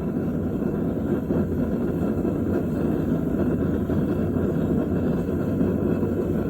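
Forge running steadily while the bronze leaf heats in it, an even noise with no hammer blows.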